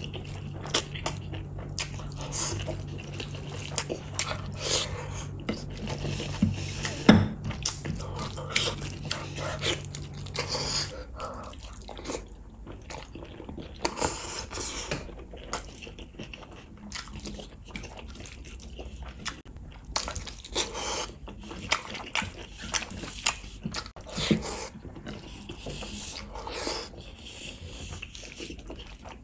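Close-miked eating by hand: wet chewing, lip smacking and sticky clicks as rice and beef in gravy are scooped up and eaten, many short sounds in a loose run. A low steady hum sits underneath and stops about a third of the way in.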